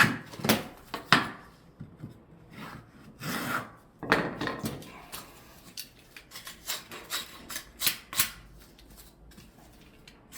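Wooden flooring boards being handled and fitted: irregular scraping and rubbing of wood on wood, broken by sharp light knocks and clicks.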